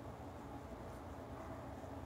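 Steady low hum and faint hiss of a quiet room, with no distinct sound events.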